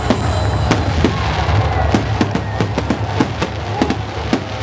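Fireworks going off: a rapid string of sharp pops and crackles, several a second, over a steady low rumble, with a faint high whistle near the start.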